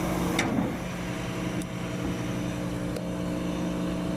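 Vacuum excavator truck running steadily, a constant engine-and-machinery hum, with a short sharp click about half a second in.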